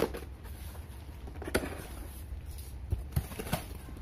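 Cardboard box flaps being handled and pushed open: a few short knocks and rustles, three of them close together near the end, over a steady low rumble.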